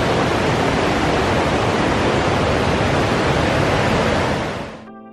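Steady loud rush of flowing water from a nearby river or waterfall, an even hiss with no breaks. It fades out near the end as soft piano music comes in.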